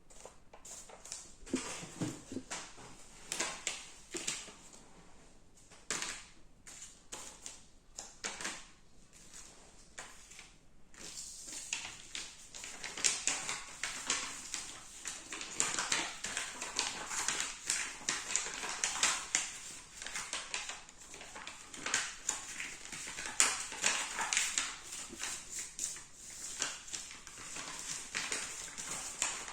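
A sheet of paper being handled and folded by hand, rustling and crackling with frequent short creasing sounds, busier in the second half.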